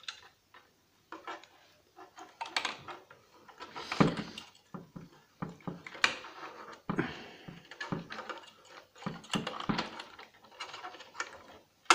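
Hands handling and pulling wiring on a stripped turntable's metal deck plate: irregular clicks, light knocks and rustling scrapes of wires and small parts.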